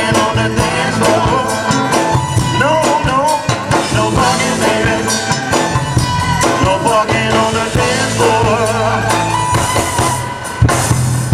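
Live soul band playing: drum kit and bass keeping a steady beat under a wavering lead melody.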